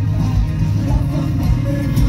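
Live pop-rock band playing an instrumental passage, with electric guitar, bass guitar and keyboard, heard through the PA from the audience.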